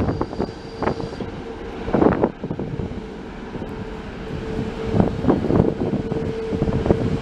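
Jet airliner engines giving a steady mid-pitched whine, with heavy wind gusts buffeting the microphone, the strongest about two seconds in and again near the end.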